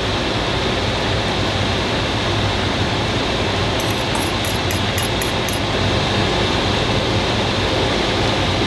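A beef and vegetable stir-fry sizzling steadily in a frying pan on the stove, with a low hum underneath. A quick run of faint high ticks comes about four seconds in, as sauce is poured into the hot pan.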